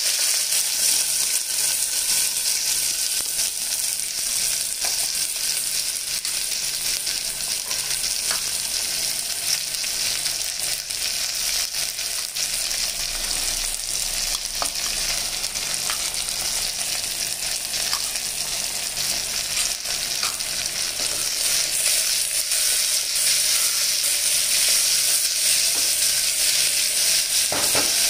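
Chopped onions, with green chillies and curry leaves, sizzling steadily in well-heated oil in an aluminium pressure cooker pan. A few light clicks and scrapes come from the utensils. The hiss grows a little louder in the last few seconds.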